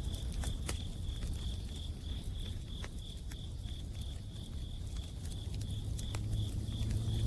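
Wood campfire crackling with scattered sharp pops, over an autumn cricket chirping steadily in a pulsing rhythm of about three chirps a second. A low rumble runs underneath and swells slightly near the end.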